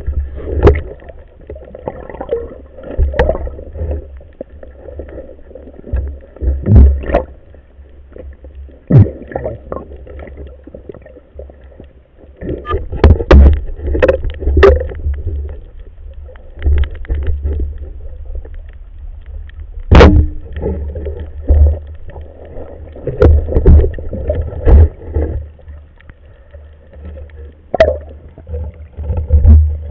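Muffled underwater sound picked up by a camera in a waterproof housing: a low, uneven rumble of water moving past as the diver swims. Irregular sharp knocks and clicks break through it, the sharpest about two-thirds of the way in.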